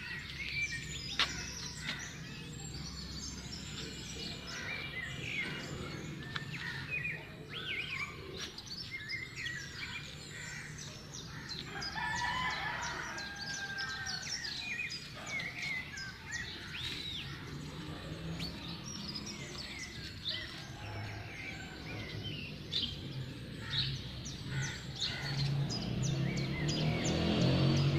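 Small birds chirping throughout, with a rooster crowing about halfway through. A low rumble underneath grows louder near the end.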